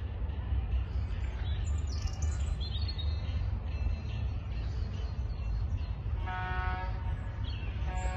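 Small birds chirping in short calls over a steady low rumble. About six seconds in, a held tone with several overtones sounds for about a second.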